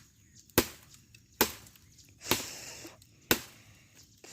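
Machete (corvo) chopping dry firewood: four sharp strikes about a second apart, the third followed by a short rustling crack of wood.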